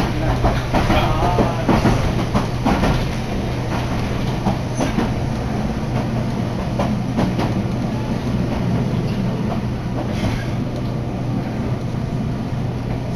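Inside an electric commuter train running on the Matsumoto Electric Railway Kamikochi Line: a steady rumble with a low hum from the running gear, and a run of clicks from the wheels over rail joints in the first few seconds.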